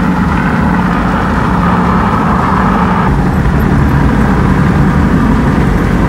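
A car driving with a window open, heard from inside the cabin: a loud, steady rush of wind and road noise over the engine's low hum. About halfway through, the higher part of the rush eases a little.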